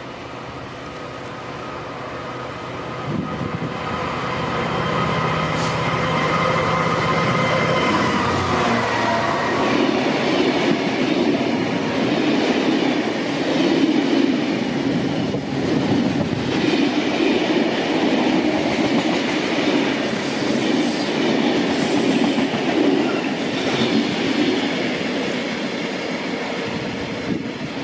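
A Class 66 diesel locomotive's EMD two-stroke V12 engine grows louder as it approaches and runs past, its pitch dropping slightly as it goes by about eight seconds in. A long rake of open box wagons then rolls past, with a steady rumble and rattle of wheels on the rails.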